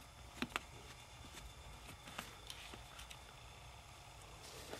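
A few faint, scattered clicks and light taps: a small screwdriver working out a screw from the plastic case of a TomTom GPS unit.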